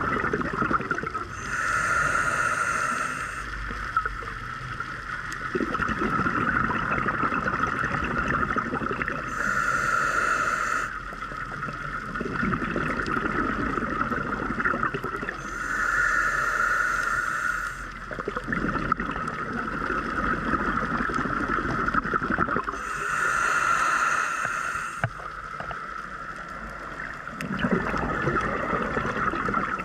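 Scuba diver breathing through a demand regulator underwater: a hiss of each inhale, then a low bubbling rumble as the exhaled air bubbles out. There are four breaths, about one every seven seconds, over a steady high whine.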